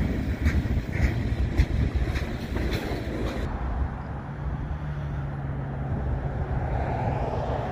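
Freight train cars rolling past, steel wheels on the rails: a steady rumble with sharp clicks over the first few seconds. A steady low hum comes in about halfway through.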